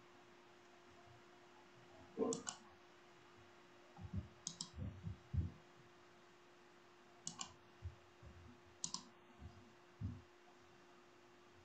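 Quiet room tone with a steady hum, broken by four sharp double clicks and a scattering of soft low thumps.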